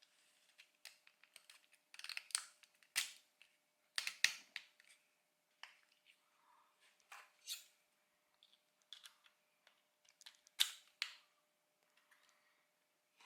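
Hard 3D-printed plastic parts being handled and fitted together: a scatter of light taps and sharp clicks, with louder clicks in clusters about two to five seconds in and again near eleven seconds.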